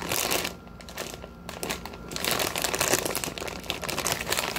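A plastic potato-chip bag of Mike-sell's Groovy chips crinkling as it is handled and pulled open at the top, a dense crackle that is lighter about a second in and heavier in the second half.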